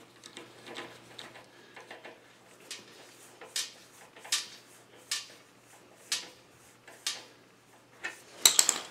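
Screwdriver tightening a worm-gear hose clamp on a rubber air hose: small metal clicks about once a second, ending in a louder rattle of several clicks near the end.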